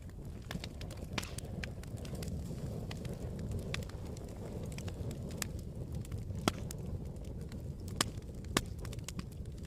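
Campfire burning: a steady low rush of flame with irregular sharp crackles and pops from the burning wood, a few louder pops in the second half.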